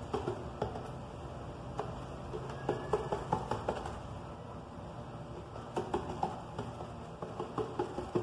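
Fingertips dabbing paint onto a styrofoam vase: soft, irregular taps, a few seconds apart at times and in quick runs at others.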